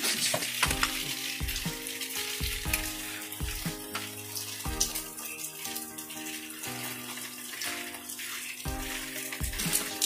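Instrumental background music with held chords that change every second or so.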